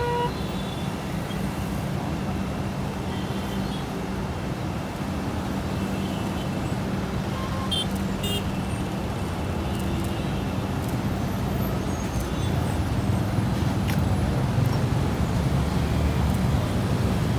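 Steady low rumble of a running vehicle with a held low hum, growing a little louder about twelve seconds in.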